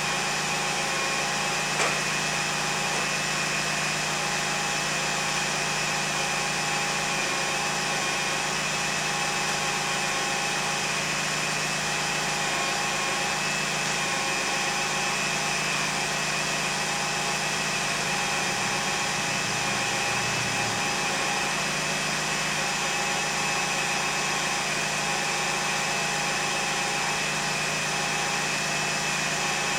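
2001 Lexus RX300's 3.0-litre V6 running steadily, with a steady high-pitched whine over the engine sound. A single click about two seconds in.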